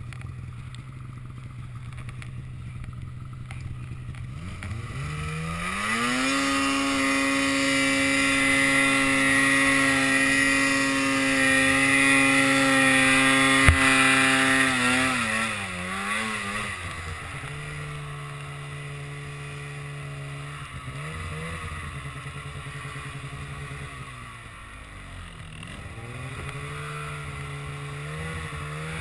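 Polaris PRO RMK 155 snowmobile's two-stroke engine pulling up a steep climb in deep powder: it runs low for a few seconds, revs up about four seconds in and holds high, steady revs for several seconds, then drops back with wavering revs to a low run and picks up again near the end. A single sharp click is heard at the peak of the high revs.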